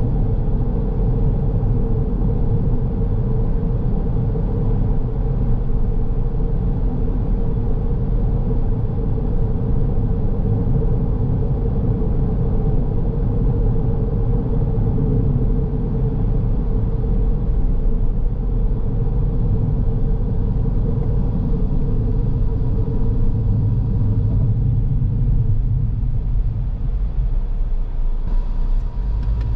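Car driving along a road: a steady low rumble of engine and tyre noise with a faint even hum.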